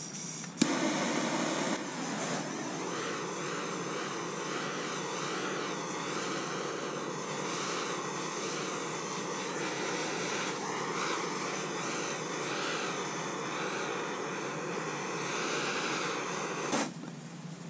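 Larger handheld gas torch on a yellow fuel cylinder lighting with a sharp pop about half a second in, then burning with a steady hiss and a faint steady tone as it heats aluminium for brazing. The flame cuts off abruptly near the end.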